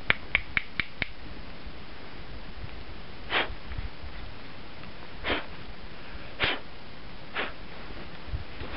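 Five quick, sharp snaps of small dry twigs being broken in the first second, then four short, soft scuffs spaced a second or two apart.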